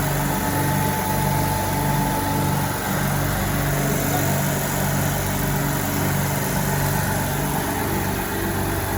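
Daming DMZ RFC6G-50.2Y compressors running, with a steady mechanical hum and a low drone that swells and fades in a regular beat about every 0.7 s. It is the extraneous noise one of the new compressors has made from its first start, coming from its valve; the second, identical compressor does not make it.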